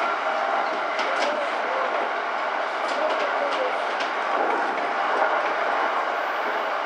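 E231-series electric train running along the track, heard from just behind the driver's cab: a steady rolling noise with a few sharp clicks as the wheels pass rail joints.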